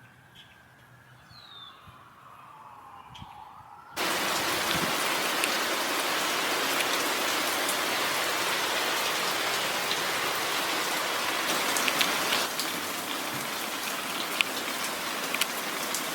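Steady rain falling, a dense hiss with scattered drop ticks, that starts abruptly about four seconds in after a faint, quiet opening.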